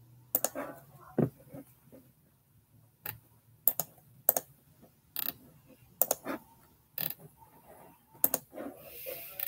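Computer keyboard clicking and tapping: about fifteen sharp key clicks at uneven intervals, some in quick pairs.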